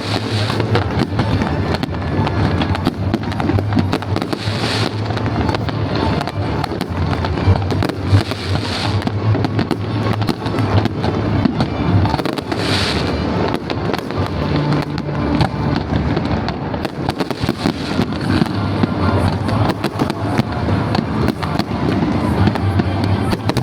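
Fireworks display going off continuously: a rapid, dense stream of bangs and crackles, with a few heavier swells along the way. Music plays underneath.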